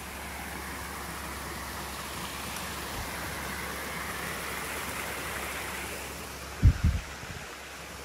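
Creek water running steadily, an even rushing sound. About six and a half seconds in, two or three short low thumps, the loudest sounds here.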